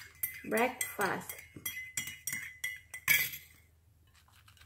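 Metal spoon clinking against the inside of a ceramic mug as a drink is stirred: a run of quick, ringing clinks over about three seconds, the last one the loudest, then it stops.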